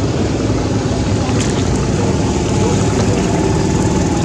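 Boat engine running steadily, a constant low drone on the river.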